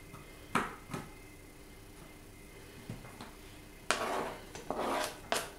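Two light knocks, then about four seconds in a short stretch of scraping and rattling as a plastic cutting board is tipped against a stainless steel pot and minced garlic is pushed off it into the pot.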